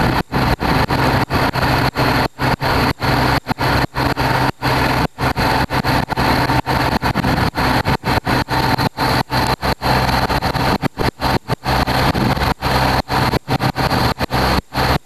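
A heavy engine, likely the truck or crane engine of a spa-moving rig, runs steadily with a constant hum. The sound cuts out briefly and irregularly, about three times a second.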